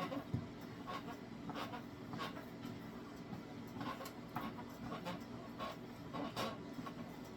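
Wet hands working and patting bread dough on a floured table: soft, moist pats and squelches, one about every half second to second, over a steady low hum.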